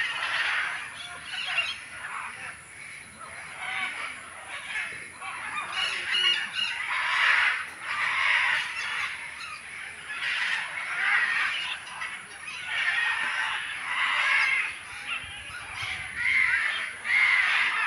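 Many birds in an aviary calling continually, their loud harsh calls overlapping and repeating about once a second.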